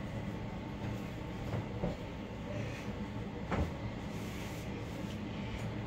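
Steady low hum with a few light knocks, the clearest about three and a half seconds in.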